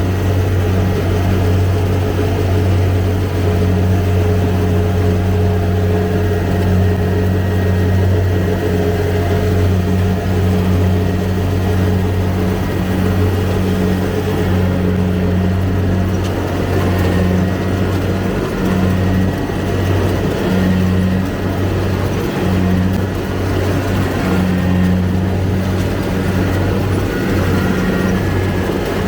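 Kubota DC-70 rice combine harvester running steadily with a deep, even engine drone.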